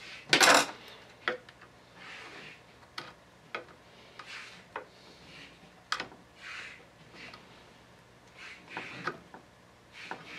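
Hands reconnecting the crimped ignition kill-switch wire terminal onto the new electronic ignition coil of a Stihl 028 chainsaw. A short scrape comes about half a second in, then scattered light clicks and soft rubbing as the small parts are handled.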